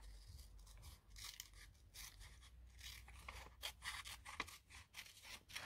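Faint, scattered rustles and light taps of paper scraps being handled.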